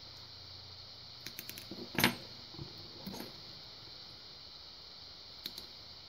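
A few light metallic clicks and taps as tweezers, a brass lock plug and a small steel ball bearing are handled, with the sharpest tick about two seconds in.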